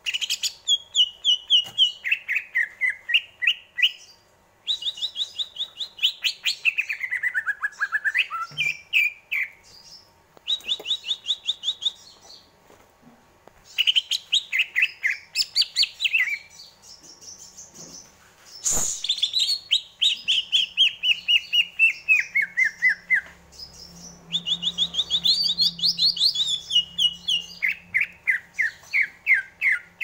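Male green leafbird (cucak ijo) singing: phrases of rapid, repeated notes, each phrase stepping down in pitch, with short pauses between them. A single sharp click sounds about two-thirds of the way through.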